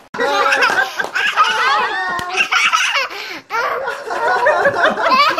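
A group of people laughing loudly together, several voices overlapping with a little talk mixed in. It starts abruptly just after the start and dips briefly about three and a half seconds in.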